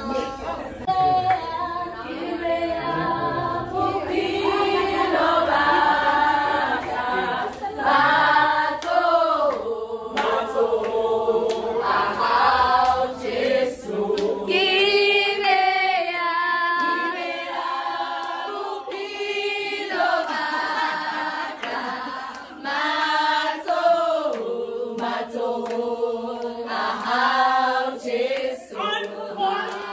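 A group of women singing together without instruments, in phrases that rise and fall, with scattered sharp claps.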